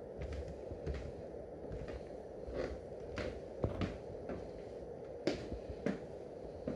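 A person's footsteps walking across a wooden floor: a string of short knocks, irregular and roughly one or two a second, over a steady low background noise.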